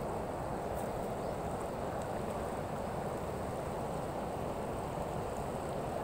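Steady rush of river water spilling over a low weir.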